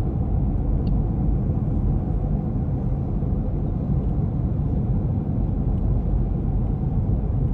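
Steady low rumble of car cabin noise, road and engine sound heard from inside the car.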